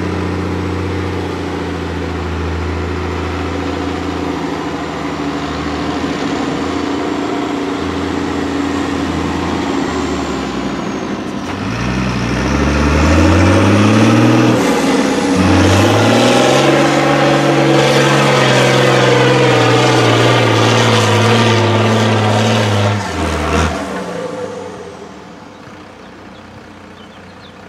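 Diesel engines of off-road trial trucks working hard: a steady engine drone for the first part. About halfway through, a six-wheel-drive trial truck's engine revs up twice and holds high revs under load for several seconds before dropping back near the end.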